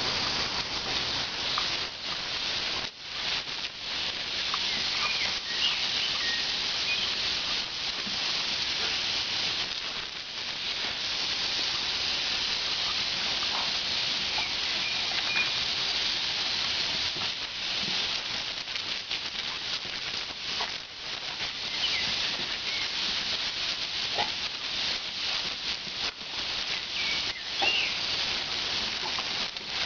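Garden hose spraying a steady hiss of water. Patter and splashes come as a staghound snaps and bites at the stream, and a few faint, short, high chirps are heard.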